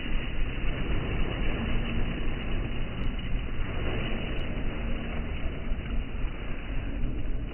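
A tractor's engine running steadily under way, heard close by, a dense, continuous low mechanical noise.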